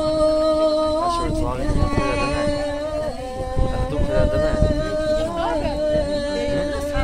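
A slow melody of long held notes, sung or played on a reed-like instrument, moving to a new note with a short slide about a second in and again near the end, over a steady low rumble.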